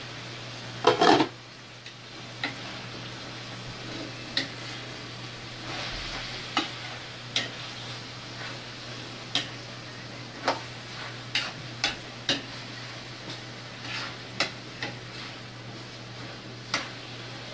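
Spatula stirring chicken, potatoes and carrots in a metal frying pan, with irregular clinks and scrapes against the pan over a low sizzle. A louder clatter comes about a second in.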